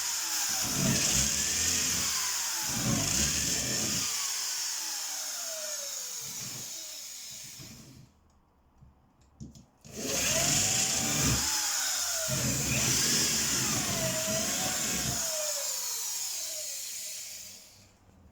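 Electric drill running in two long runs of about eight seconds with a short pause between, its pitch dropping again and again as the motor labours under load.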